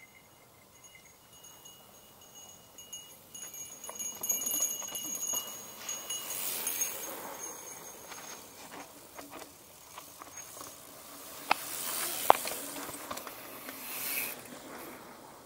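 Mountain bike riding a dirt trail: a steady high ticking from the rear freehub while coasting, tyre and wind noise swelling and fading, and two sharp knocks from the bike over bumps about three-quarters of the way through, the second the loudest.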